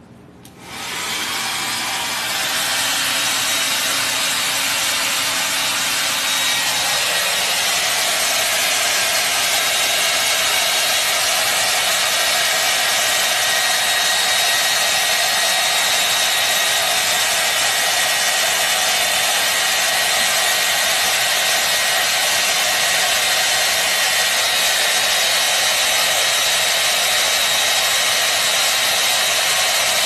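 Hair dryer switched on about half a second in, then blowing steadily: an even rush of air with a high whine running through it.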